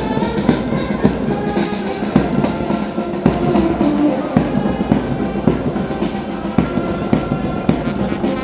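Military brass band playing a march, with a steady drum beat of about two strokes a second.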